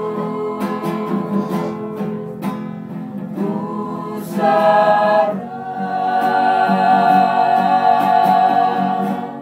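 Mixed vocal group singing in harmony with an acoustic guitar strumming along. About halfway through they swell into a louder, long held chord that ends the song, cutting off just before the end.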